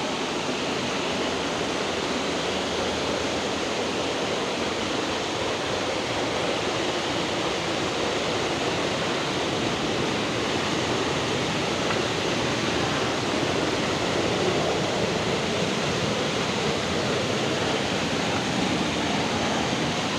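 Waimarang waterfall: water falling and crashing, a steady, dense rush with no let-up.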